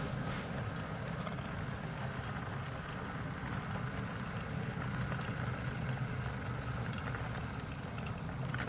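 Model railway train running slowly along the track, giving a steady low engine-like hum.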